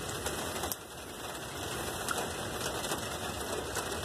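Heavy rain falling on wet pavement: a steady hiss dotted with many small ticks of drops landing.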